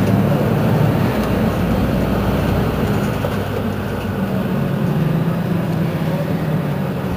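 Mercedes-Benz Citaro C2 city bus engine idling at a stop, a steady low hum that eases slightly partway through.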